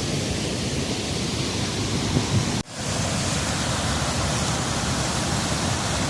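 Steady rush of a waterfall in heavy flow, swollen by flood rains. The sound drops out for an instant about two and a half seconds in.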